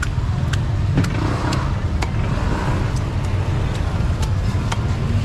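Market street with a steady low rumble of passing motor traffic, and sharp ticks about twice a second over it.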